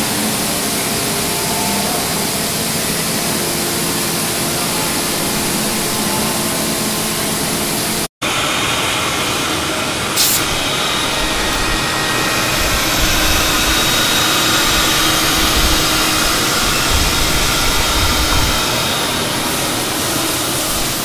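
CNC router spindle cutting guitar bodies out of wood blanks: a steady loud whir with faint held tones. About 8 s in it gives way to the steady noise of a guitar-body sanding room, with sanding machinery and dust extraction running, a sharp knock about 10 s in and a low rumble through the middle of the second half.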